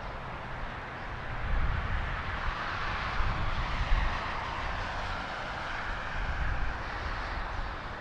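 Boeing 777-200ER's twin turbofan engines at low taxi power: a steady jet hiss that swells a little in the middle, over an uneven low rumble.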